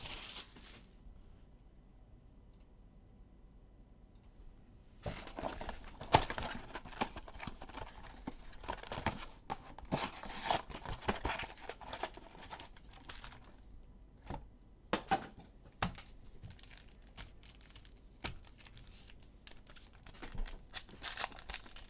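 Hands tearing open a cardboard blaster box of Donruss Optic basketball cards and ripping into its foil trading-card packs. After a few nearly quiet seconds, a long run of crinkling and tearing noises with sharp rips starts about five seconds in.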